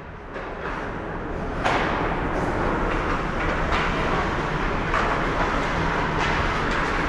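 Ice hockey play heard across an indoor rink: a steady rumbling noise with skates scraping on the ice. Several sharp clacks of sticks and puck come about a second apart.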